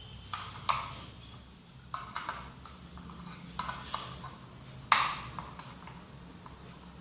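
Clicks and knocks of small plastic parts being handled, a handful scattered through, with the sharpest knock about five seconds in.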